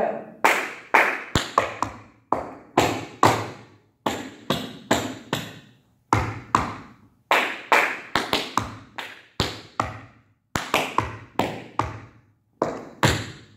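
Tap shoes striking a hard floor in a tap combination: quick irregular clusters of sharp heel and ball taps and shuffles, phrased in short runs with brief pauses between them.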